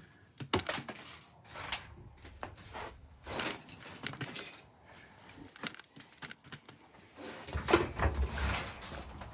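Metal parts and tools being handled and moved around: scattered clanks and knocks, with ringing metallic clinks about three and a half seconds in. Heavier thuds and shuffling come near the end.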